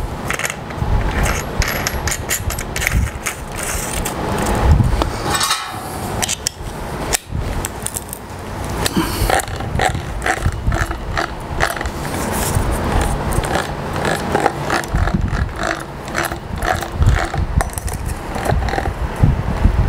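Hands working on a handheld angle grinder: irregular clicks, rattles and scrapes of its metal and plastic parts, with no steady motor sound.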